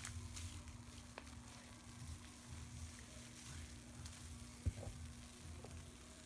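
Thick pine-cleaner soap lather in a tub fizzing and crackling faintly as its bubbles pop, with scattered tiny clicks. There is one short low thump a little under five seconds in.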